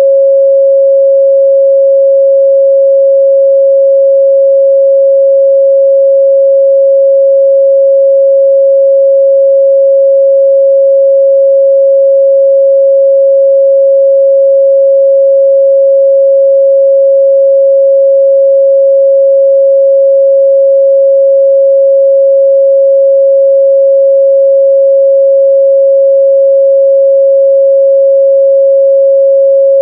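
A continuous 547 Hz pure sine-wave test tone, held at one steady pitch and level with no overtones.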